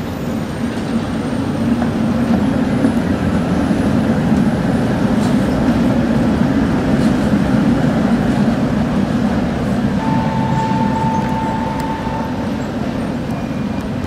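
Škoda 14T tram passing close by on street track: the steady rumble of its wheels and motors swells as it goes by and eases as it pulls away. Near the end a steady high tone sounds for about two seconds.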